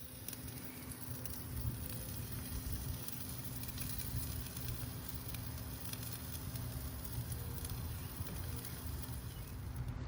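Pork tenderloins sizzling on a grill: a steady hiss with scattered crackles over a low rumble.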